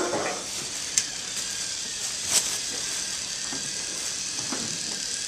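Small electric toy motor running with a steady whir, with a sharp click about a second in.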